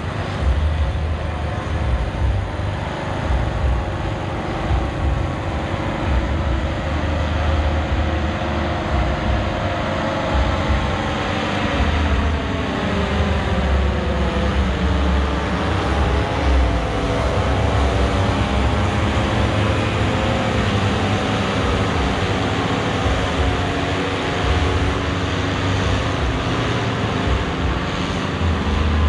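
Aircraft engines droning overhead as a formation passes, their pitch bending downward through the middle of the pass, over a steady low rumble.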